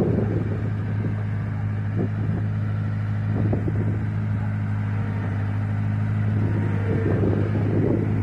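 1974 JCB 3 Mk3 backhoe's diesel engine running steadily at low throttle as the machine trundles along in gear, with a few faint knocks.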